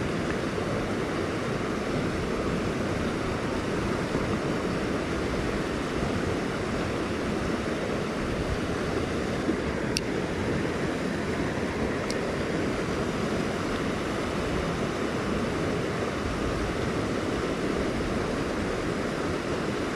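Steady rushing of water pouring over a creek spillway and through rapids, an even continuous roar. Two faint clicks come about halfway through.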